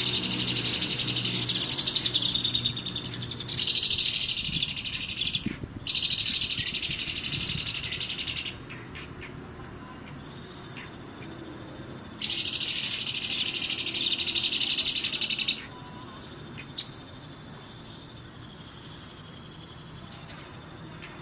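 Pied starling (jalak suren) singing in its busy 'gacor' style: four loud, dense bouts of harsh chattering song, each two to three seconds long, the last starting about twelve seconds in, with quieter gaps between and a quieter stretch at the end.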